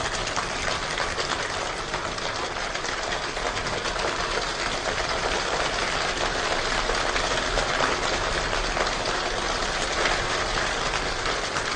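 A Slovenian choir's body-percussion rainstorm played back over the hall's speakers: many people snapping fingers, rubbing and slapping their hands together in a dense, even patter that grows slightly louder, with no singing.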